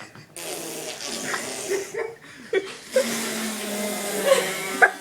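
People imitating farts: several short, irregular buzzy fart noises, then a longer steady buzzing one from about three seconds in.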